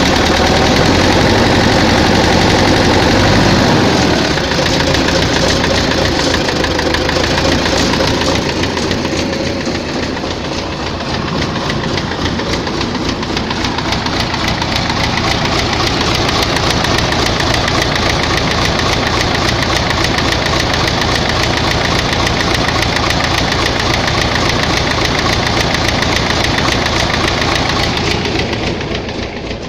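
Tractor diesel engine running with a knock. The knock shows at idle and medium revs but goes away at high revs, and it persists after the fuel pump and injectors were checked. The engine note changes about four seconds in.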